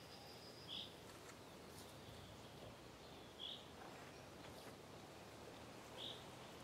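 Near silence with a single bird's short, high call repeated three times, about every two and a half seconds.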